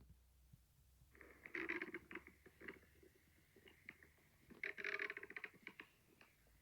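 Faint stomach growling: two bursts of gurgling made of quick crackling clicks, about a second and a half in and again about five seconds in, the sound of an empty, hungry stomach.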